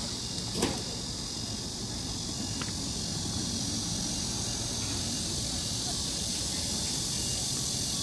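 Steady high-pitched chorus of insects, over a low outdoor rumble, with a single sharp click about half a second in.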